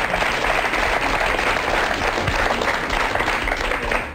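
Studio audience applauding, dying away at the very end.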